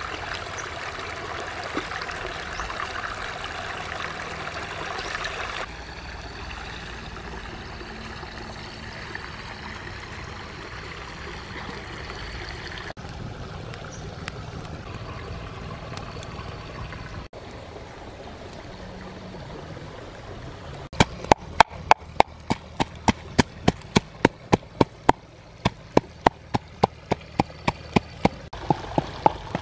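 A shallow stream running over stones, then, about two-thirds of the way in, a long run of sharp knocks at about three a second: a pestle pounding red chilies in a small mortar.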